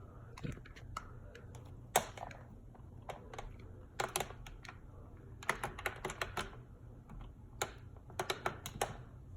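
Scattered sharp plastic clicks and taps, some in quick runs, from the controls of a Lasko pedestal fan being pressed while it is unplugged. Under them runs the steady low hum of a ceiling fan on medium speed.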